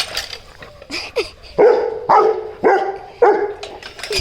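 A seven-month-old Rottweiler puppy barking four times, about half a second apart.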